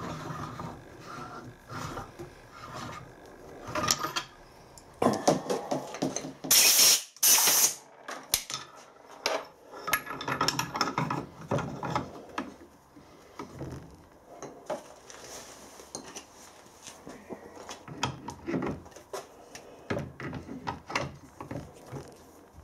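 Adjustable hand reamer with a pilot guide being turned through bronze main bearings, scraping and rasping in irregular strokes as it cuts, with small metallic clicks. A louder, harsher rasp comes about seven seconds in.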